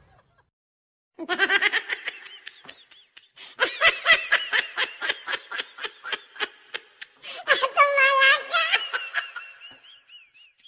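Person laughing hard in rapid, high-pitched bursts of ha-ha, starting about a second in, with a longer held laugh about three-quarters of the way through.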